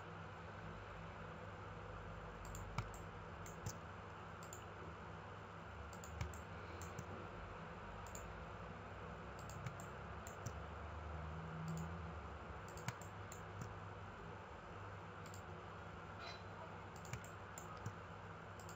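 Scattered single computer mouse clicks, a second or more apart, over a faint steady hum and hiss.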